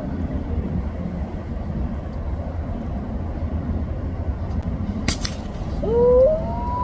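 A single sharp crack of a .22 PCP air rifle shot about five seconds in, over a steady low rumble. The shot is a hit: the iguana it strikes flips over right after.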